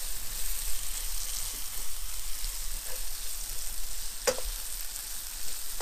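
Sliced onions and curry paste sizzling in a frying pan while being stirred with a wooden spoon, the paste being cooked out. A single knock sounds about four seconds in.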